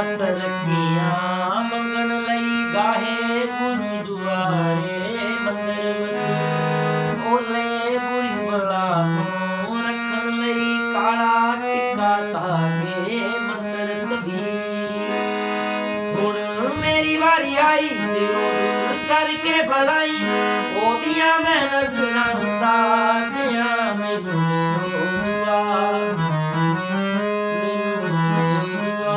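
Harmonium playing a melody over a held low note, with a man singing a Punjabi song over it in gliding, wavering lines.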